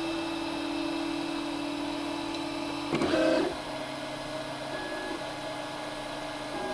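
MakerBot Replicator 2 3D printer starting to print, its stepper motors giving a steady whine over the machine's hum. About three seconds in there is a brief louder whirr, after which the whine settles a little lower and shifts pitch in short steps as the print head moves.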